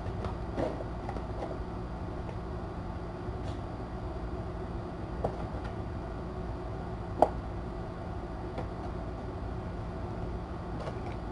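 Steady low room hum with a few light taps and knocks from kittens playing, and one sharp click about seven seconds in.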